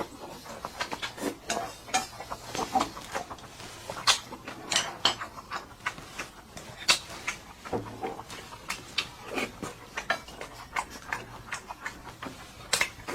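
People eating: irregular, close-up chewing and mouth smacks, mixed with light clicks of utensils and dishes.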